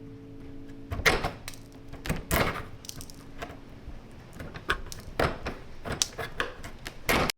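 Paint scraper working softened paint off a door handle: irregular short scraping strokes and clicks, a few of them louder.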